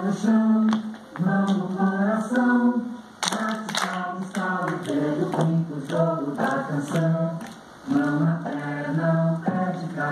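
Several voices singing a song in chorus, with a melody moving from note to note.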